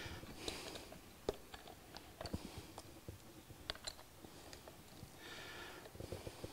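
Faint, scattered metallic clicks and ticks of a small ratchet and socket working the wheel's loose 10 mm hub bolts off, with a brief rattle about five seconds in.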